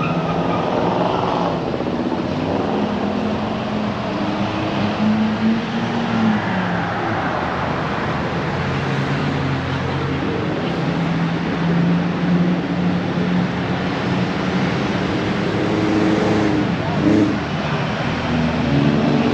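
Car engines running in slow street traffic, their pitch rising and falling as they pull along.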